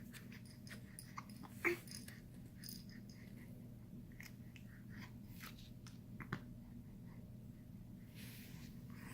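A young baby's faint hiccups: a short hic about a second and a half in and another about six seconds in, with small breathing and mouth sounds between them, over a low steady hum.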